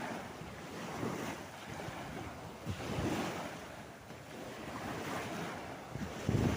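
Sea waves washing in, swelling and fading every couple of seconds, with wind buffeting the microphone in low rumbling gusts, the strongest near the end.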